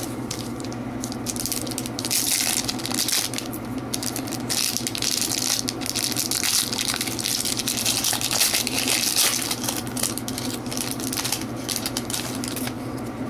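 Foil wrapper of a hockey card pack crinkling and crackling as it is torn open by hand and the cards are pulled out.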